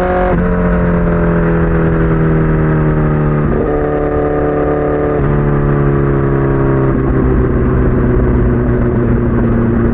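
Honda CBR1000RR Fireblade inline-four engine running well above idle. Its pitch sags slightly and changes in sudden steps: down early on, up once about three and a half seconds in, then down twice more before holding steady.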